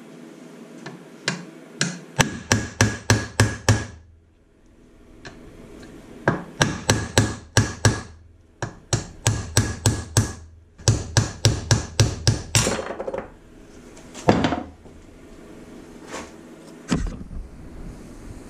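Hammer blows driving the main bearing shells out of a Suzuki SV650 crankcase half: four quick runs of sharp, metallic-ringing taps, about five a second, then a few single blows near the end. The shells are being knocked out by hand because there is no press.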